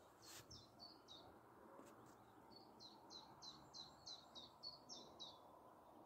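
Faint bird song: a string of short, high chirps, each falling in pitch, about three a second, with a short pause after the first few, over a quiet background hush.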